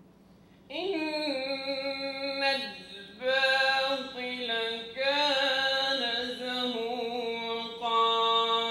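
A solo voice singing or chanting unaccompanied in long held, wavering notes. It begins about a second in and goes in phrases of one to three seconds with short breaths between them.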